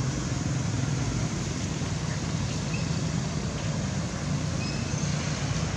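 Steady low rumble and hiss of outdoor background noise, with a few faint short chirps.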